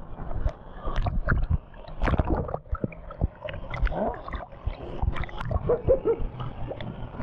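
Churning river water splashing, sloshing and gurgling right against an action camera riding at the waterline, with many irregular knocks and slaps as waves hit it and it dips in and out of the surface.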